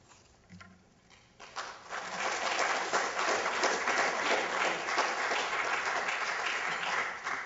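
Audience applause that starts about a second and a half in, after a short pause, holds steady, and dies down near the end.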